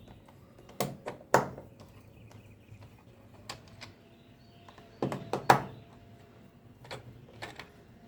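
A handful of sharp clicks and knocks of hand tools and small hard parts being handled, two about a second in and a cluster around five seconds in, with a few lighter ticks near the end.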